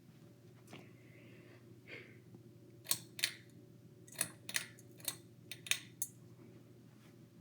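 2004 Progress Lighting AirPro Builder ceiling fan running with a low, steady hum. About ten sharp clicks come in quick succession from about three to six seconds in.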